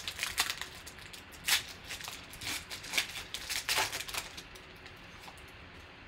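Foil wrapper of a Panini Optic basketball card pack being torn open and crinkled by hand as the cards are pulled out: a run of sharp crackles that stops about four seconds in.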